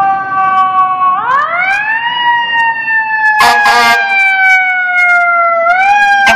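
Fire engine siren wailing, rising over about a second and then falling slowly before starting to rise again. A short horn blast sounds about three and a half seconds in.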